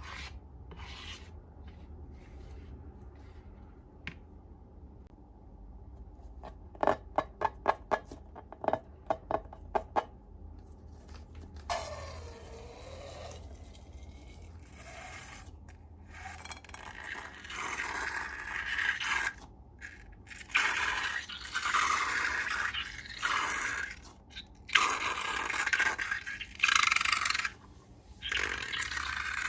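Slime-making handling sounds: a quick run of about eight sharp clicks, then stretches of scraping and stirring in repeated bursts, louder in the second half.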